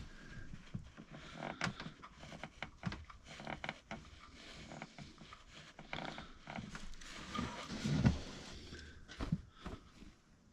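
Faint, scattered clicks, taps and rustles of hands, a rag and tools working in a car engine's timing-chain area, with a duller knock about eight seconds in.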